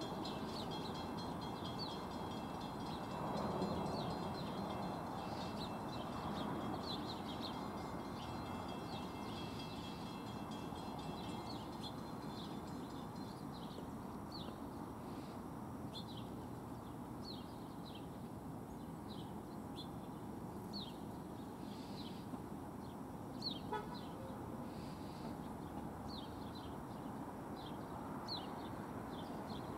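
Steady low outdoor background noise with a bird calling over it: short downward-slurred chirps repeating at irregular intervals of about one a second through the second half, after faint thin high tones in the first part.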